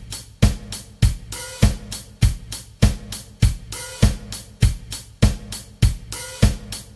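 Drum kit playing a steady rock beat at 100 beats per minute: closed hi-hat eighth notes, bass drum on every beat and snare on beats two and four. Once each bar an open hi-hat rings briefly.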